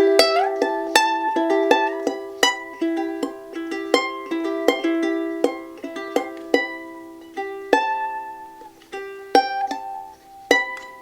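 Soprano ukulele with Tasmanian blackwood back and sides and an Adirondack spruce top, tuned to high G, being picked: single notes and chords plucked one after another and left to ring out and fade.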